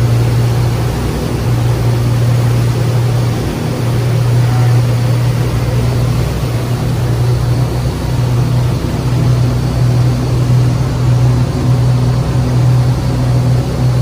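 Twin engines of a Sea Ray 340 Sundancer express cruiser running steadily underway: a deep, even drone over a constant hiss of wind and water.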